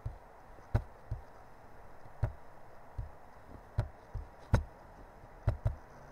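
Computer mouse clicking: about ten sharp single clicks at irregular spacing, with a quick double-click near the end, over a faint steady hiss.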